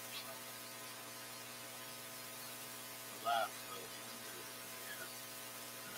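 Steady electrical mains hum with hiss. A brief voice sound comes about three seconds in.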